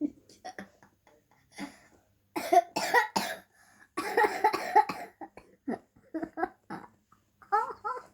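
A young girl coughing in repeated fits: several short, sharp coughs in quick clusters, with a longer run of coughing about four seconds in.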